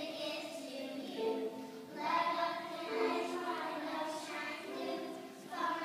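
A class of kindergarten children singing a song together, held notes in phrases with a fresh line starting about two seconds in and again near the end.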